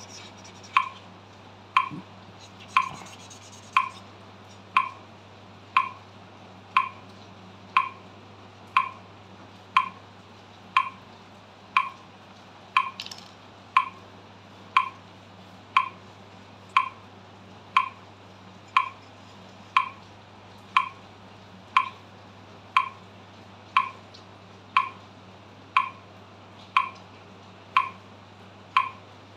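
Metronome ticking at 60 beats per minute, one sharp click each second, over a steady low hum. A marker scratches briefly across paper about three seconds in and again around thirteen seconds.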